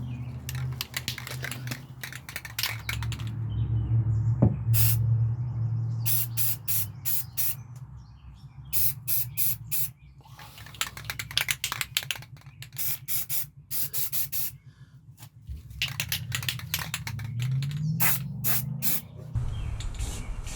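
Spray paint hissing out in many short bursts, clustered with brief pauses, as bare metal spots and screw holes are touched up. A steady low hum runs underneath.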